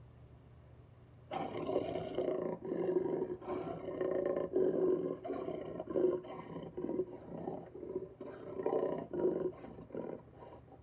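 Jaguar giving its sawing call: a run of rough, hoarse grunts in quick succession, starting about a second in and easing off near the end.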